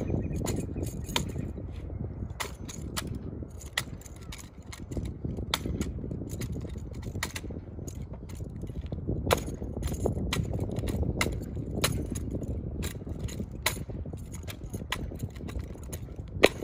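Sharp, irregular clicks and slaps from a drill routine: boot heels striking asphalt and hands smacking a drill rifle. They come sometimes in quick runs and sometimes a second or more apart, over a steady low rumble.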